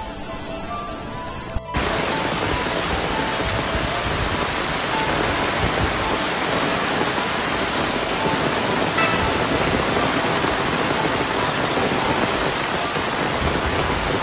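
Heavy rain pouring down: a loud, steady hiss that cuts in suddenly about two seconds in, with background music playing underneath.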